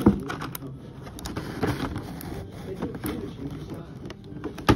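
Clear plastic blister tray of a Hot Wheels die-cast car set being handled: crinkling with irregular clicks and taps, a sharper click at the start and another near the end.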